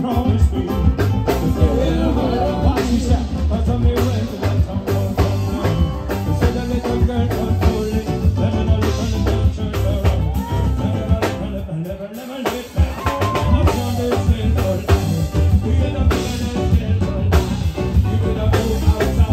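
Live island band music: drum kit, bass guitar, ukulele and keyboard playing an upbeat song, with a short drop-out about twelve seconds in.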